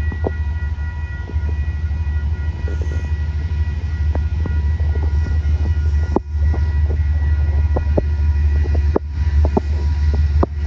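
Train running: a loud, steady low rumble with several thin, steady whining tones above it and scattered sharp clicks.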